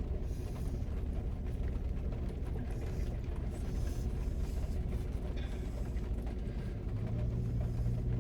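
Rain heard from inside a car as a steady low rumble, with a steady low hum joining about seven seconds in.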